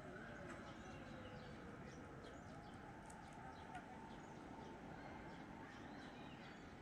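Near silence: faint outdoor background with a steady low hum and a few faint, short, high bird chirps.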